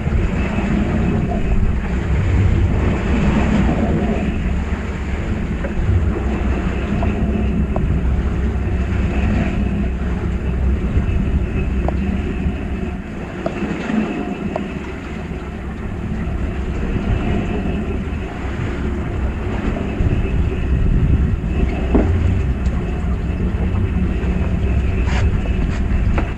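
Fishing boat's engine running steadily with a low, even hum, and a few faint clicks.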